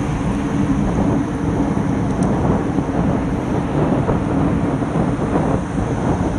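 Steady low rumble of wind buffeting a handlebar-mounted action camera's microphone on a road bike at about 16 to 18 mph, mixed with road noise from the tyres.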